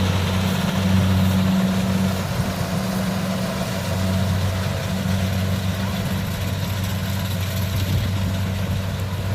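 Kubota DC70 combine harvester's diesel engine running steadily with a low, even hum. The hum thins out for a couple of seconds about two seconds in, then comes back.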